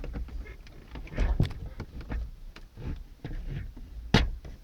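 Plastic clicks and rattles of electrical plug connectors being worked loose from the back of a Fiat Uno gauge cluster, with handling knocks and a sharp click about four seconds in.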